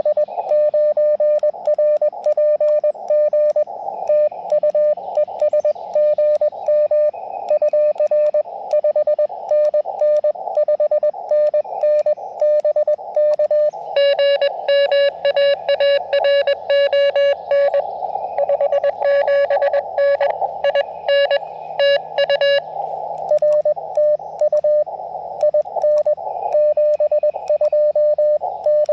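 Morse code (CW) from an Elecraft KX2 transceiver: a single mid-pitched beep keyed in rapid dots and dashes over the hiss of the receiver's narrow filter. From about halfway through, for some eight seconds, a stronger, cleaner run of keying stands out.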